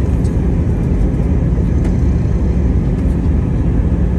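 Airbus A321 cabin noise in flight: a steady low rumble of airflow and jet engines with a faint constant hum.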